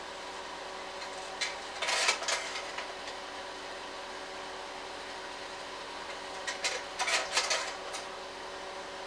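Slide projector's fan humming steadily, with the slide-change mechanism clacking twice, about two seconds in and again about seven seconds in, as the next slides drop into place.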